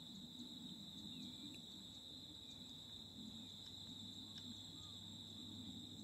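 Faint outdoor ambience: insects making a steady high-pitched drone over a low rumble, with a few faint short chirps scattered through.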